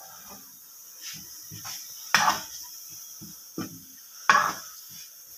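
Black plastic spoon scraping and knocking against a coated frying pan while shredded chicken is stirred and tossed. An irregular series of scrapes and knocks, loudest about two seconds in and again just past four seconds.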